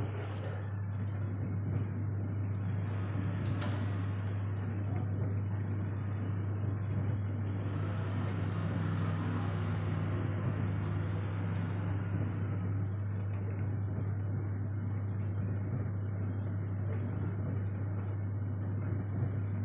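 A steady low hum with a wider hiss that swells about eight seconds in and fades a few seconds later, and faint scattered small clicks.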